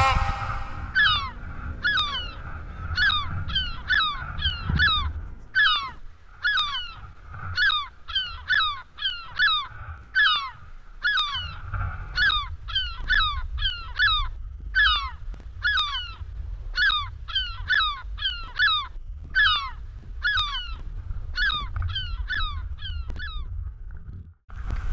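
A bird calling over and over in short, harsh, falling calls, about two a second, with a low rumble of wind on the microphone underneath.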